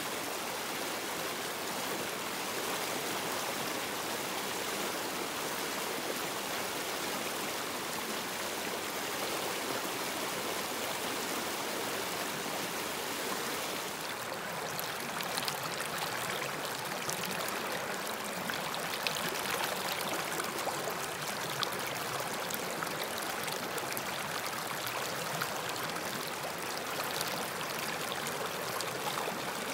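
A river flowing, a steady rush of water, with small splashes and drips becoming more frequent about halfway through.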